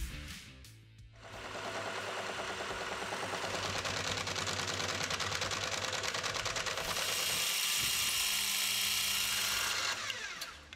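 Milling machine end mill cutting a steel die-handle blank under coolant spray: a dense, fast rattling grind that starts about a second in, turns brighter and hissier for its last few seconds, and stops just before the end. Background music plays faintly underneath.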